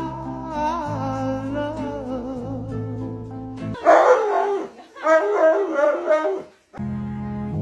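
Upbeat ukulele music, which breaks off about four seconds in for a dog's two loud, wavering howls lasting about two and a half seconds; the music then comes back in.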